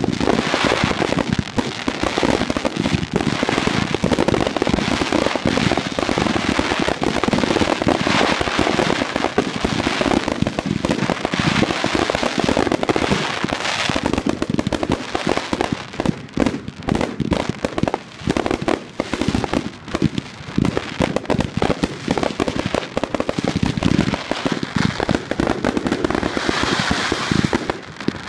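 Fireworks finale barrage: shells launching and bursting in a dense, unbroken run of bangs. A hissing crackle stands out near the end.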